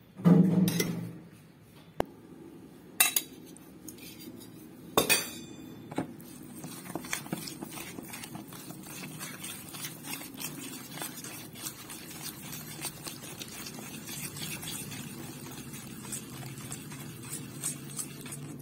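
Wire whisk beating a thick sugar-and-fat mixture in a steel bowl, the wires clinking and scraping on the metal in a fast, steady run of small ticks. A dull thump about half a second in and a few sharp knocks of the whisk against the bowl come in the first seconds, before the continuous whisking.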